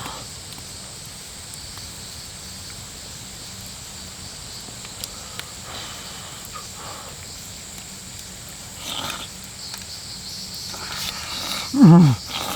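Steady outdoor background hiss with a thin high whine, a few faint clicks, and near the end a short loud voice-like call that falls in pitch.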